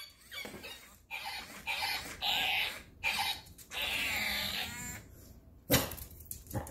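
Squeakee, an electronic balloon-dog toy, playing its recorded dog-like noises through its small speaker: a run of short yips, whines and squeaks, one wavering call about four seconds in, and a short sharp sound near the end.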